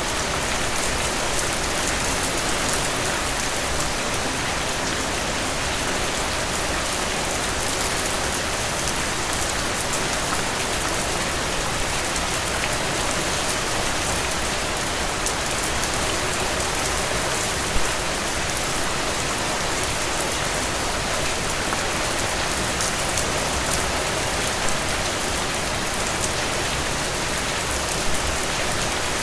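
Steady heavy rain falling on surfaces, an even hiss with dense drop patter and a few louder drips or splashes.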